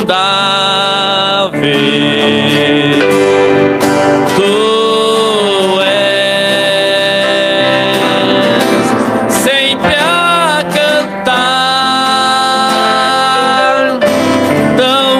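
Man singing a slow Portuguese gospel hymn into a microphone with long held notes, over instrumental accompaniment.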